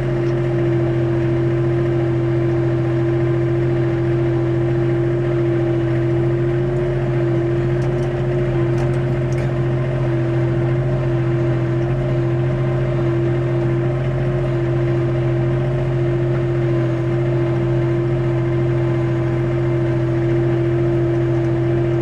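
Compact loader tractor's engine running at a steady, unchanging throttle as the tractor drives along.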